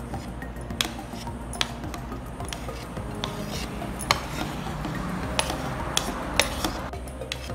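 Steel spoon clinking against a glass tumbler and a plastic plate as diced fruit is spooned into the glass: a series of sharp separate clinks, roughly one a second, with soft scraping between them.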